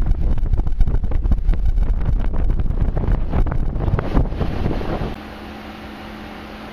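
Wind buffeting the microphone from a moving car, with road rumble underneath. About five seconds in it cuts off suddenly to a quieter, steady low hum.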